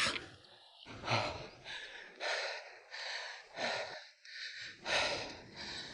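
A man breathing hard through nose and mouth, a string of quick audible breaths in and out, winded and sweating from cycling uphill.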